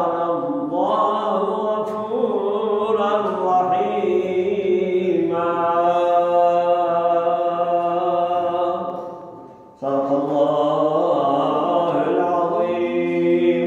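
A man's voice reciting the Quran in Arabic in a melodic chant, with long held notes. It fades out for a breath about nine seconds in and starts again straight away.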